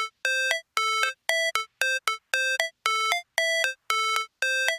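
Synthesizer music intro: short, clean electronic notes in a repeating pattern, each a held note followed by a quick second note, about twice a second, with brief silences between.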